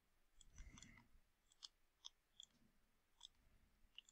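Near silence with faint, scattered light clicks, about six in four seconds: a stylus tapping and sliding on a tablet screen as numbers are handwritten.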